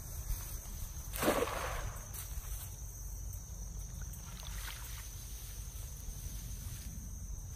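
A cast net hitting the water of a shallow creek with one splash about a second in, then fainter sloshing and dripping as the wet net is hauled back out of the water.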